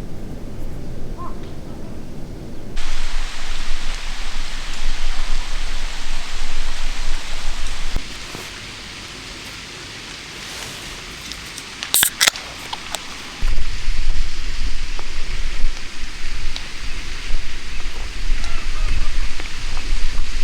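Steady outdoor hiss that changes abruptly about three, eight and thirteen seconds in, with heavy low rumble on the microphone in the last part and a short cluster of sharp clicks about twelve seconds in.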